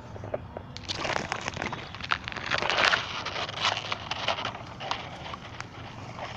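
Dense rustling and crackling with many small clicks, as litter and dry debris are handled during a garden clean-up; it starts just under a second in and is loudest about three seconds in, over a steady low hum.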